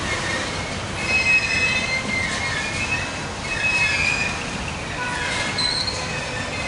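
BNSF covered hopper cars of a grain train rolling slowly past, their wheels squealing in high, wavering tones that rise and fade over the steady rumble of the cars.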